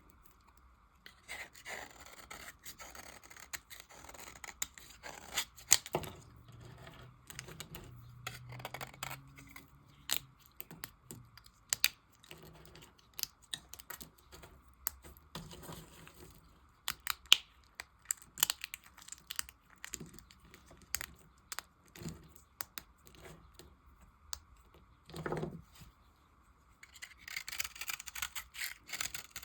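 Knife cutting and carving soap scraps: irregular crisp cracks and clicks, with denser scraping and rasping near the end.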